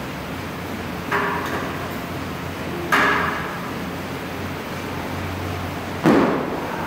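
Three sharp clanks of gym weights striking the floor or each other, about a second, three seconds and six seconds in, the last the loudest and deepest, over the steady whoosh of an air bike's fan being pedalled.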